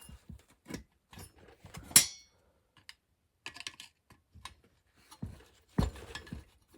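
Small metal parts clicking and clinking as the governor linkage is worked loose from a lawn mower engine during teardown. There is one sharp, ringing metal clink about two seconds in and a duller knock near the end.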